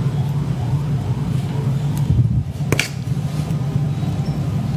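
Steady low hum, with a single sharp click a little past the middle.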